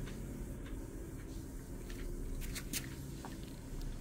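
A cat eating fish soup from a metal bowl: soft wet lapping and chewing with a few small clicks, several of them close together about two and a half seconds in, over a steady low hum.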